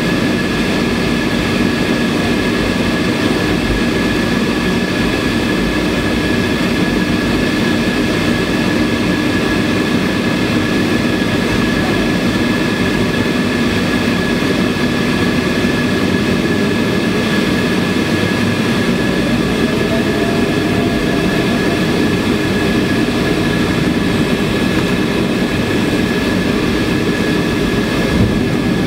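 Airliner engines running steadily, heard from inside the passenger cabin on the runway before take-off, a constant rushing noise with a steady high whine.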